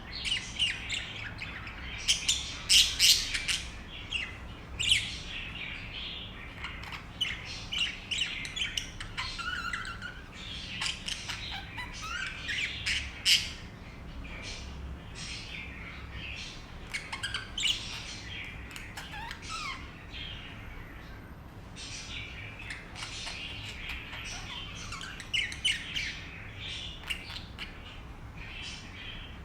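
Young budgerigar chirping: runs of short, rapid chirps with a few quick falling notes. The chirping is busiest in the first half and again near the end, and sparser in between.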